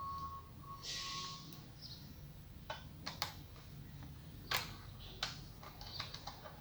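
Scattered light clicks and taps of small parts being handled. A faint steady high tone runs through the first second and a half, then stops.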